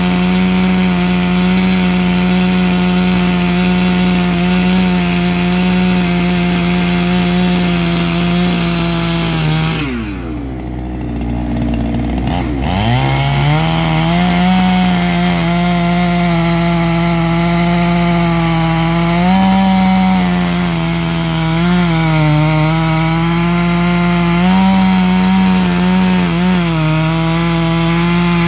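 Petrol chainsaw with a tungsten-tipped chain running at full throttle, cutting through a large log. About ten seconds in the engine drops briefly toward idle and then revs back up as it goes back into the cut. The chain is still cutting well, throwing big, chunky sawdust.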